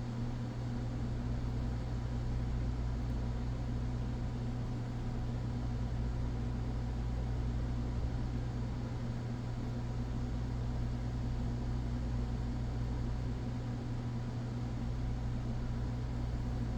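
Steady low machine hum with a faint even hiss, unchanging throughout, like a fan or small motor running.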